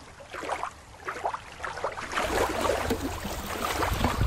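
Water sloshing, then about two seconds in a hand splashes and sloshes in shallow water to scoop up a toy, over a low rumble.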